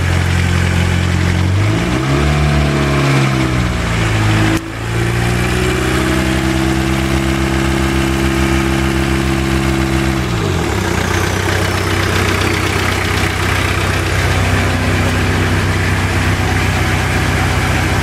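Volkswagen Jetta diesel engine idling, revved up and back once, then held at raised revs for several seconds before dropping back to idle about ten seconds in. It has a ticking knock that persists even with a new rod bearing and new lifters.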